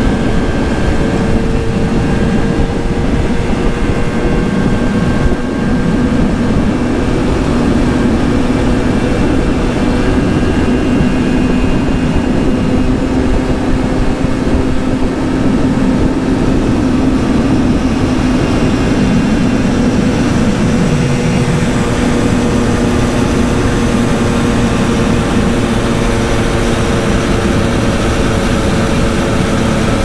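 Simson 50 cc two-stroke moped engine running under way at a steady cruising pace. Its note drifts gently up and down and dips briefly about twenty seconds in before picking up again.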